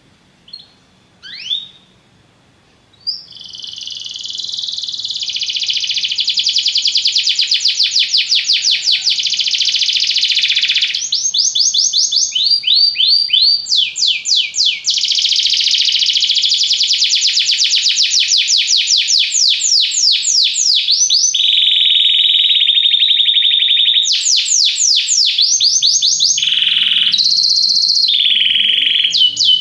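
Domestic canary singing: a few short chirps, then from about three seconds in a long, loud, unbroken song of fast trills and rolling repeated notes that switch pattern every few seconds.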